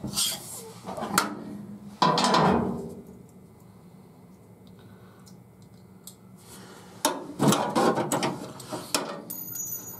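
Hand work on a seat-belt mounting bolt being started from underneath: sharp metal clicks and scrapes of the bolt, washer and tools being handled. A louder scrape about two seconds in, then a cluster of clicks and rubbing near the end.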